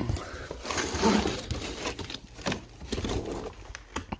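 Crumpled brown kraft packing paper rustling and crinkling in a cardboard box as a hand digs through it, in irregular bursts.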